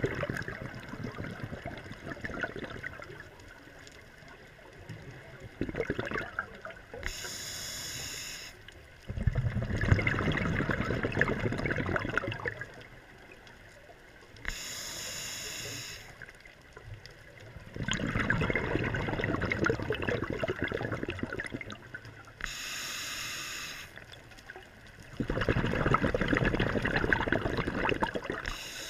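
Scuba diver breathing through a regulator: a short hissing inhale, then a longer, louder rush of exhaled bubbles, repeating about every eight seconds.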